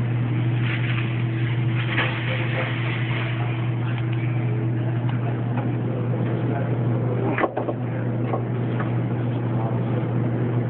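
An oil filter being worked by hand out past the front suspension of a 1998 Lincoln Mark VIII: scattered small clicks and scrapes, with one sharp knock about seven and a half seconds in. Under it all is a steady low hum.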